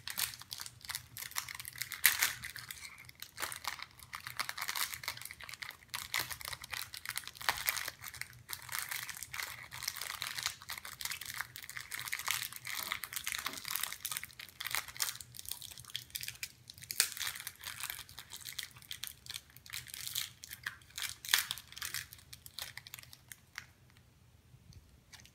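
A plastic candy wrapper crinkling in irregular crackles as a child's fingers twist and pull at it to open it, dying down near the end.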